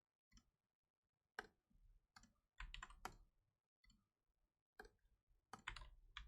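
Faint, irregular clicks and taps of computer keyboard typing.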